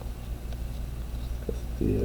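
Steady low hum of room noise with a couple of faint ticks from trading cards being handled and flipped. A man's voice starts near the end.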